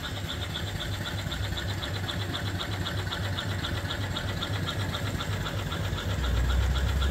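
Reproduction 1880s-style vertical steam engine, 3-inch bore by 4-inch stroke, running steadily on steam from its boiler, with a fast, even mechanical beat. A low rumble swells near the end.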